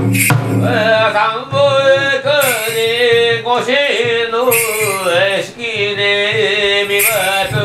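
Bitchu Kagura music: a male voice chanting a kagura song in long, wavering held notes, with a few drum strokes and bursts of metallic jingling every couple of seconds.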